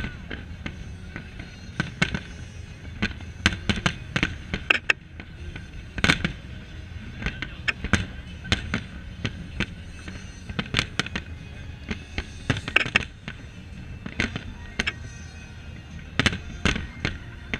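Aerial firework shells bursting in quick, irregular succession: dozens of sharp bangs and cracks over a continuous low rumble.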